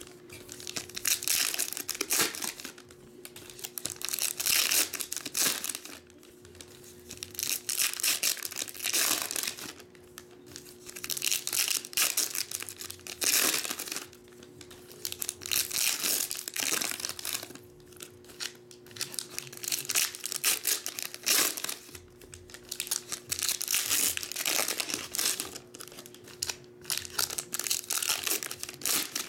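Foil trading card pack wrappers crinkling and tearing as they are opened by hand, in repeated bursts of one to three seconds with short pauses between.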